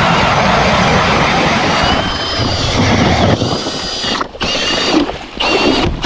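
Drill-powered ice auger boring through the ice, driven by a Milwaukee Fuel cordless drill: the blades grind steadily under a high motor whine. It stops briefly about four seconds in, then runs in two short bursts near the end.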